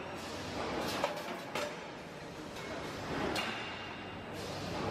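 Aluminium ingot casting line running: a steady mechanical rumble and hiss from the conveyor of ingot moulds, with a few light metallic knocks.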